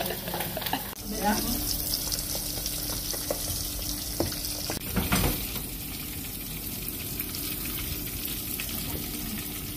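Pork belly deep-frying in hot oil under a mesh splatter screen: a steady sizzle and crackle, with a brief knock about five seconds in.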